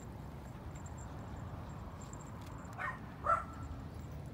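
A dog gives two quick, high yips close together about three seconds in, over a steady low background rumble.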